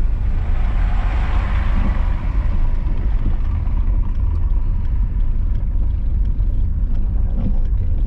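Steady low rumble of a car driving slowly on a snow-packed road, heard from inside the cabin, its tyres fitted with snow chains.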